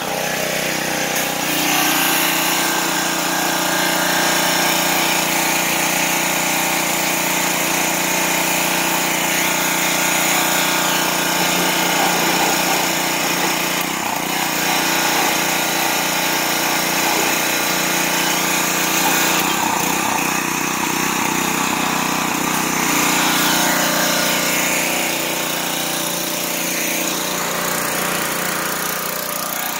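Gas-engine Craftsman pressure washer running steadily while its high-pressure water jet hisses onto a snowplow blade.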